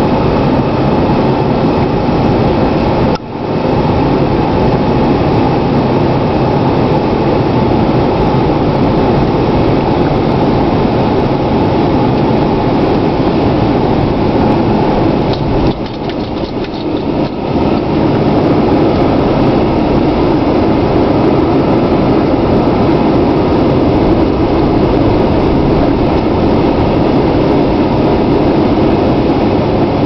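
Steady drive noise heard inside the cab of a Dodge Ram 3500 pickup with a Cummins turbo-diesel engine, moving through snow: engine and tyre noise. It drops briefly about three seconds in and again for a couple of seconds around sixteen seconds.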